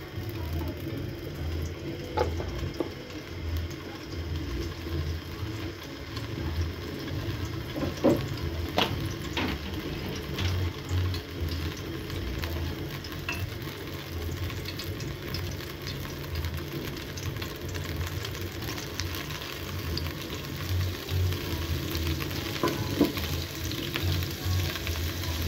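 Cooking oil and butter sizzling as they heat in an aluminium pot: a steady frying hiss with scattered small pops and crackles. Near the end a wooden spoon stirs the melting butter.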